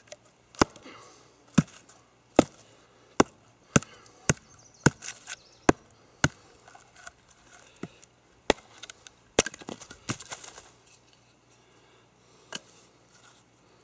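Terava Skrama heavy carbon-steel knife being batoned down through a block of wood: a run of about fifteen sharp wooden knocks, roughly one every 0.7 s, spacing out a little after six seconds. A splintering crackle about ten seconds in as a piece splits off, and one last knock near the end.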